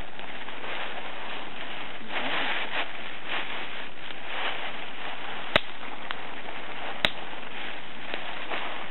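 Campfire of dry wood crackling steadily, with two sharp loud pops about a second and a half apart, past the middle.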